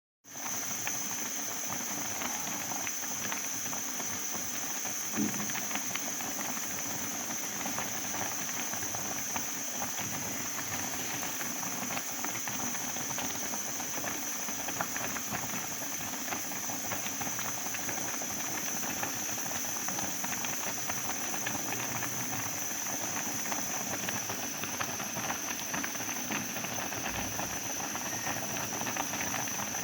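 Rice cooking in a pot at a boil: steady hiss of steam with many small rapid pops of bursting bubbles, and one brief knock about five seconds in.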